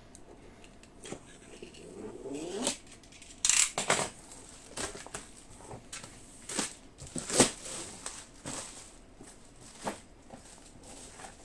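Cardboard box being cut open with a hand cutting tool and its flaps handled: scraping, rustling and a series of sharp clicks and knocks, the loudest about seven seconds in.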